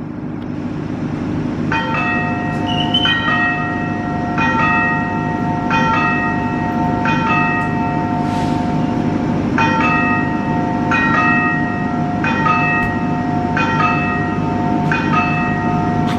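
A bell rings in a slow, even pattern, one multi-toned strike about every second and a quarter, starting about two seconds in. Under it runs the steady low rumble of an idling diesel locomotive.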